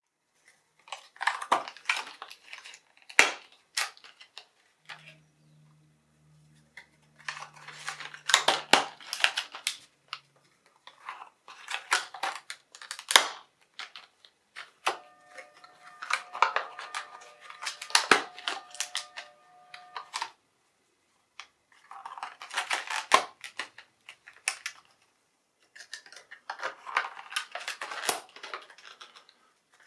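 Small black boxes handled and set down one after another on a work table: six bursts of clattering and rattling with short pauses between, each with one sharp knock.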